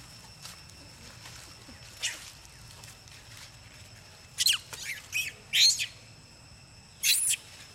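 A young long-tailed macaque squealing shrilly. There is one cry about two seconds in, a quick run of four or five high, wavering squeals around the middle, and two more near the end.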